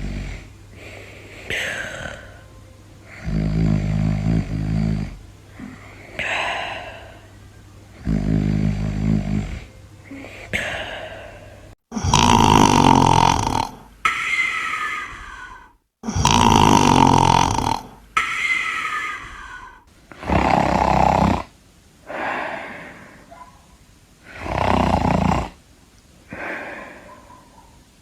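Snoring: rumbling snores alternate with breaths out that carry a whistle falling in pitch, repeating every few seconds. The snores are loudest in the middle stretch.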